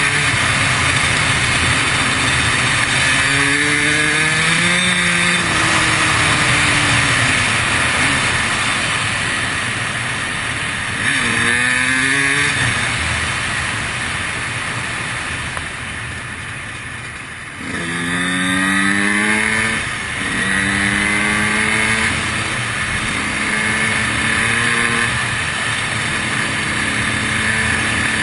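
2003 Honda CR125's two-stroke single-cylinder engine revving under riding load, its pitch climbing several times and dropping back, easing off briefly around the middle, then holding steady near the end. A constant rushing noise runs underneath.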